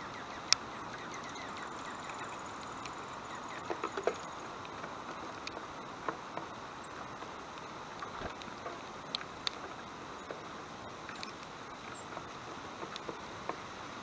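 Steady outdoor background hiss with scattered sharp clicks and taps: the loudest about half a second in, and a quick cluster near four seconds.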